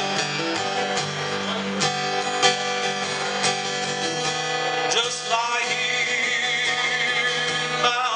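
Acoustic guitar strummed steadily in a song, with a wavering lead melody line coming in over it about five seconds in.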